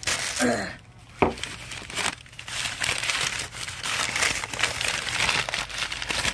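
Paper packing and a brown paper bag being crumpled and rustled by hand while unwrapping, a continuous crinkling with one sharp click about a second in.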